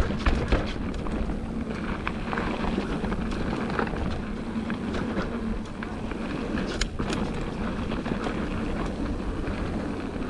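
Mountain bike rolling along a dirt trail: steady wind rumble on the camera microphone over tyre noise, with scattered clicks and rattles.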